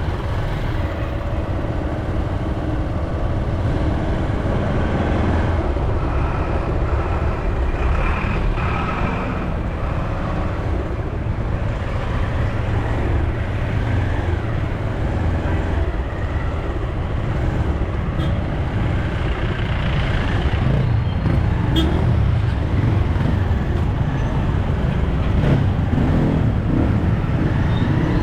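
Steady road noise from a vehicle travelling through city traffic: a continuous low rumble of engine and tyres, a little louder in the second half.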